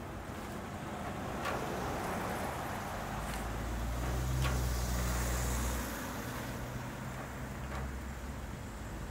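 Low engine rumble of a passing motor vehicle, swelling to its loudest about four to six seconds in and then easing off, with a few faint clicks.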